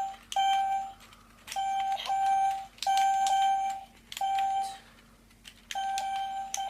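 Light-up Rubik's cube electronic game beeping: short single-pitch beeps, each about half a second long, about seven times at uneven intervals, as its lit buttons are pressed in a timed game.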